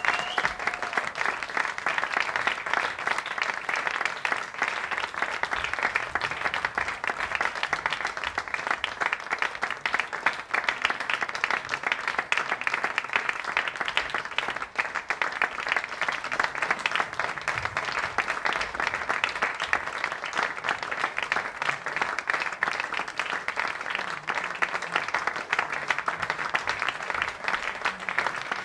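Audience applauding: steady, dense clapping that runs on evenly without a break, with a brief high gliding call, like a whoop, right at the start.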